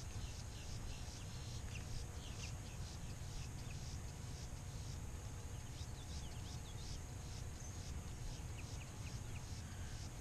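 Marsh ambience: a steady high-pitched insect chorus pulsing about three times a second, with short bird chirps scattered through it, over a low steady rumble.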